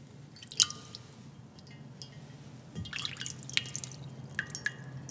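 Water dripping and splashing into a glass baptismal bowl as a hand is lifted from it: several separate drips and small splashes, a few with a short ringing plink.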